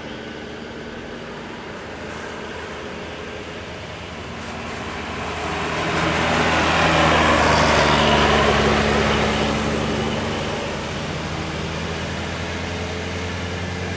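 A road vehicle driving past with its engine running steadily. Its engine and tyre noise swells from about four seconds in, peaks a few seconds later and fades away.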